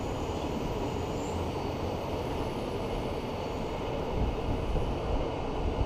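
Passenger train running, a steady rumble and rush of wheels on rail heard from inside the carriage at the window.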